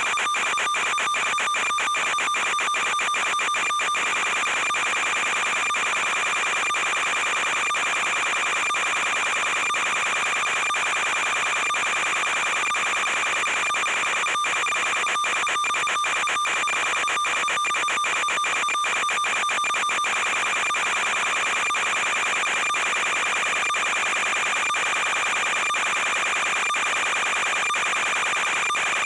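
A steady electronic buzz with crackle, unchanging in pitch and level: the kind of noise an analog FPV video link's audio channel carries.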